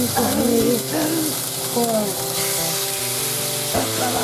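Food sizzling as it fries in sesame oil with garlic in a pan, a steady frying hiss.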